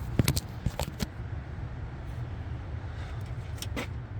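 Handling noise: a few light clicks and rustles in the first second and a couple more near the end, over a steady low rumble.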